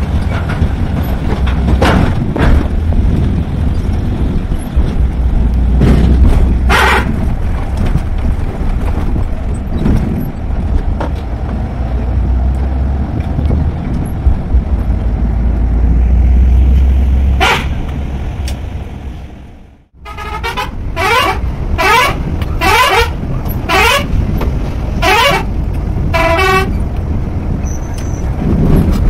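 Steady low drone of a Volvo coach's engine and road noise, heard from the driver's cab, with a couple of short horn toots. After a cut, a quick run of about eight honks of a vehicle horn, each bending in pitch.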